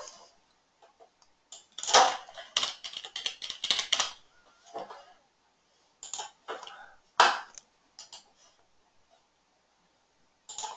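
Computer keyboard typing and clicking: a quick run of keystrokes about two seconds in, then a few scattered single clicks.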